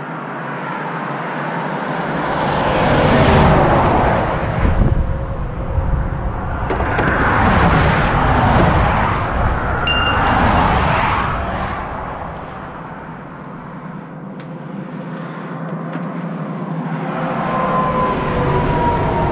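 Highway traffic passing close by, several vehicles one after another, each swelling and fading away. The last one, near the end, has a falling whine as it goes past.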